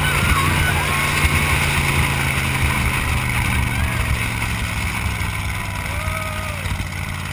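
Dune buggy engine running steadily as the buggy drives across sand, with wind noise over the open vehicle.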